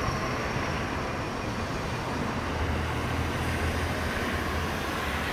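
Steady city road traffic: cars and a bus moving along the street, with a low engine rumble that swells about halfway through.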